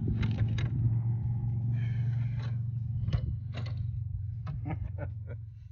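A steady low hum like a running vehicle engine, growing fainter and dying away, with scattered sharp clicks and knocks.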